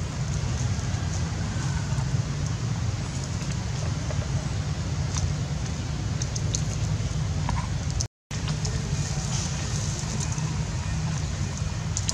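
Steady low rumble with an even hiss over it, a few faint clicks scattered through; the sound cuts out for a moment about eight seconds in, then carries on the same.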